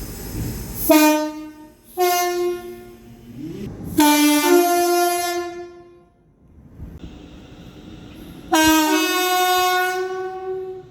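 Train horns sounding a series of blasts: two shorter ones about one and two seconds in, then two longer two-tone blasts, each stepping from a low note up to a higher one and lasting about two seconds, about four seconds in and again near the end.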